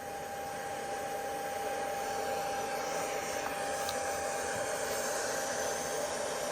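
Steady rushing hiss with a thin steady whine through it, slowly growing louder.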